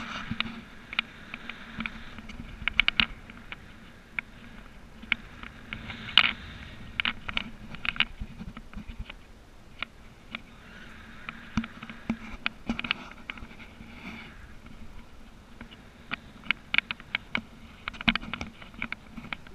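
Irregular clicks and taps from the camera and parasail harness hardware, over a light rush of wind on the microphone and a faint steady hum.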